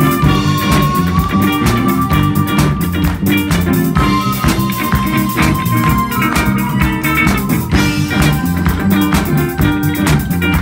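Live rock band playing: a harmonica solo with long held notes over electric guitar and drum kit.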